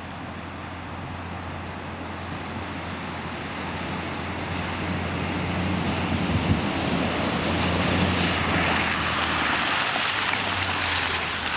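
Toyota 80 series Land Cruiser fording a river: its engine drones under load while water surges and splashes from the bow wave. The sound grows steadily louder as the vehicle comes closer and climbs out of the water.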